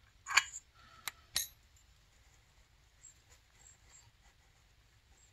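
Light metallic clicks and taps from small carburetor parts being handled and screwed together: three sharp clicks in the first second and a half, then only a few faint ticks.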